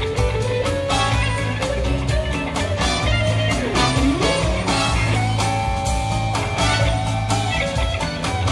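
Background music: a blues-rock track led by guitar over a steady beat, with a guitar note bent down and back up about four seconds in.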